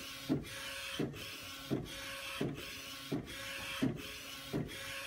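Epson-based direct-to-garment printer printing a shirt: the print-head carriage runs back and forth with a steady whir. A short knock comes regularly, about every three-quarters of a second, in time with the passes.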